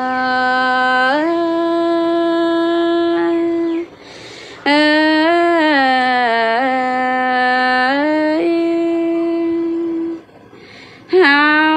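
A woman singing a Thái folk song unaccompanied, holding long notes that step up and down between two pitches. She pauses briefly for breath about four seconds in and again near the end.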